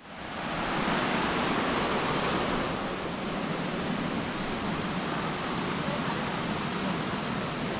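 Steady rushing noise of falling water from a waterfall, rising quickly at the start and then holding even.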